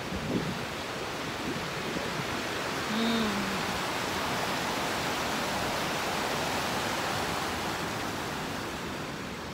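Rushing mountain stream: a steady wash of fast water tumbling over a rocky bed.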